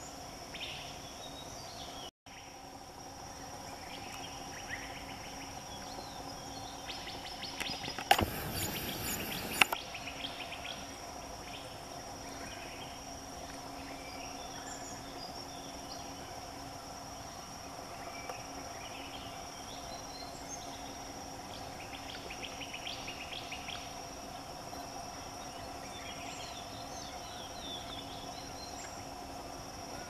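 Forest stream ambience: a steady high insect drone with scattered short bird chirps over flowing water. About eight seconds in comes a loud, brief rush of noise with a few sharp clicks, lasting under two seconds.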